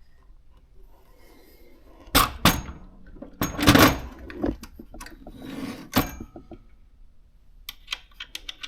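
Knocks and clatter of a heavy Consul desktop typewriter being handled, with a few loud thumps in the middle and a quick run of small metal clicks near the end.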